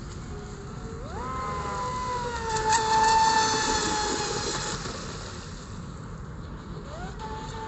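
Align 520MX brushless outrunner motor of an RC mono racing boat whining at speed. Its pitch climbs steeply about a second in, and it is loudest and hissiest around three seconds in before fading. The whine climbs again near the end.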